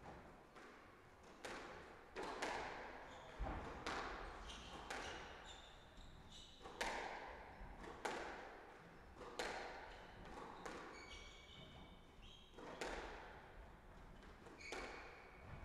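Squash rally: the ball cracks off the rackets and walls about once a second, each hit echoing in the hall, with short squeaks of shoes on the wooden court floor.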